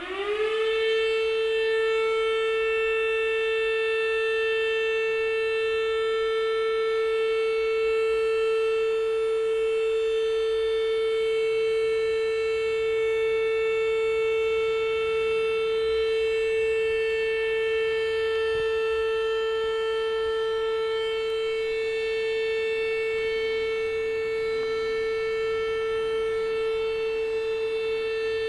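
Volunteer fire station siren sounding the call-out alarm for the firefighters. It holds one steady, loud wailing pitch and begins to fall right at the end.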